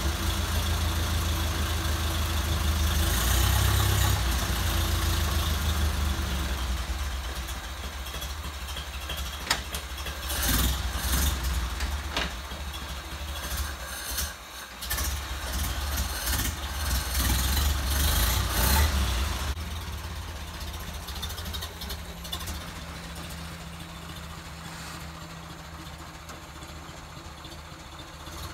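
1929 Ford Model A's four-cylinder flathead engine running at idle with some louder swells, then the sound drops and fades after about twenty seconds as the car pulls away.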